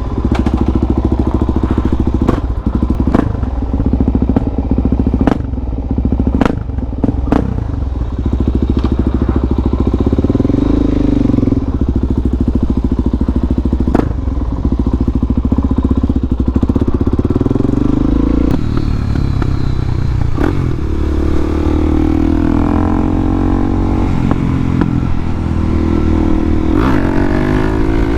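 Harley-Davidson Dyna's V-twin engine running steadily, with a series of sharp clicks and knocks over its first several seconds. About two-thirds of the way in, the revs start climbing and dropping again and again as the bike pulls away and works through the gears.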